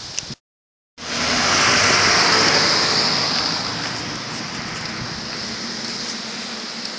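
Steady rush of floodwater from a river swollen by the hurricane, a continuous noise with no distinct drops or splashes. The sound drops out for about half a second near the start, then comes back louder and eases a little.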